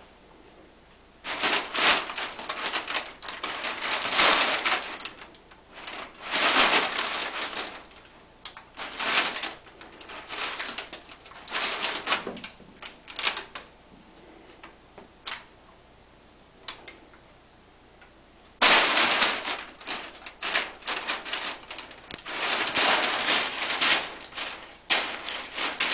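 Crumpled packing paper crinkling and rustling in irregular bursts as kittens pounce on and bat at it, with quiet pauses between; a sudden loud burst of crinkling about nineteen seconds in.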